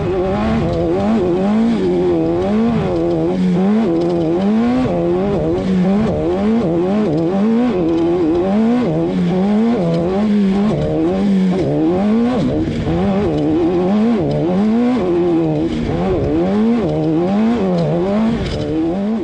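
Off-road race car engine running hard, its revs rising and falling over and over, about every three quarters of a second.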